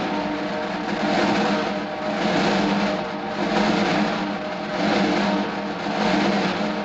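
Sustained snare drum roll building suspense before a winner is announced. It swells and eases in loudness about every second and a half.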